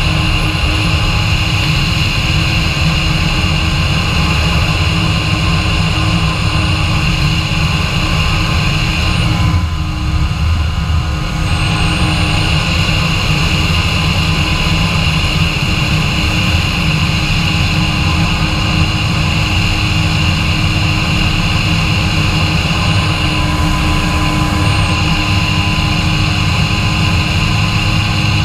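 Kawasaki Ultra 150 jet ski's three-cylinder two-stroke engine and jet pump running steadily while cruising, with a brief dip in level about ten seconds in.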